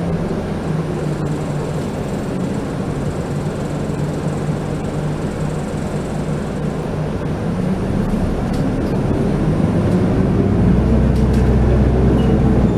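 City bus engine and road noise heard from inside the cabin, running steadily at first. From about eight seconds in the engine note climbs and grows louder as the bus accelerates.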